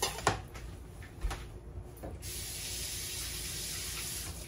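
A few sharp knife clicks on a cutting board, then a kitchen faucet running in a steady hiss for about two seconds that shuts off near the end.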